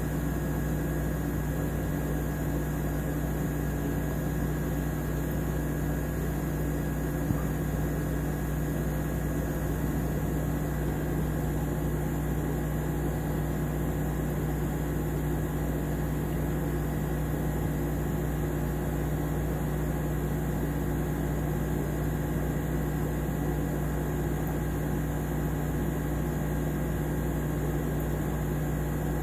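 Steady mechanical hum of running aquarium equipment: a constant low drone with a few fixed tones over an even hiss, unchanging throughout, with a single faint click about seven seconds in.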